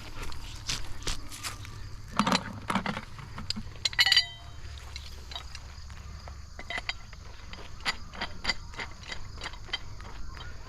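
Metal rigging hardware being handled as a pulley is fitted to the pulling rope: scattered clicks, a bright metallic jangle about four seconds in, then a run of quick even clicks, two to three a second.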